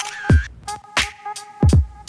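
Background music with a hip hop beat: deep booming kick drums that drop in pitch, sharp snare hits between them, and a steady held synth note.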